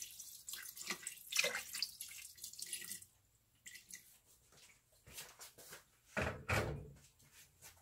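Water poured from a spouted jug into a metal pot of raw pork, a steady splashing that stops about three seconds in. A few light knocks follow, and a louder thud about six seconds in.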